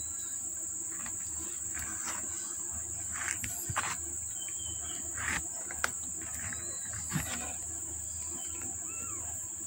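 A steady, high-pitched insect drone, with a few brief rustles and some faint short chirps in the middle.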